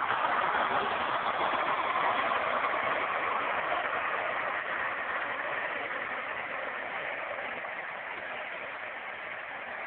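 Engine of a Case tandem road roller running as the machine passes close by and moves away, a steady mechanical noise that slowly grows fainter over the second half.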